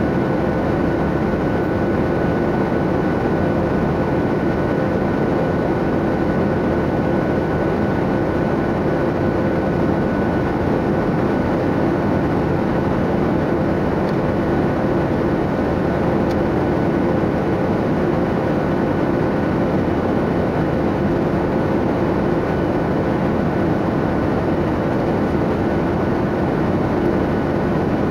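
Airliner cabin noise in cruise: a steady rushing hum with a few faint constant tones, unchanging throughout.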